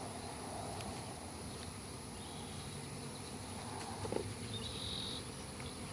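Insects outdoors: a steady high-pitched insect drone, over the low buzzing of honey bees flying around an opened hive.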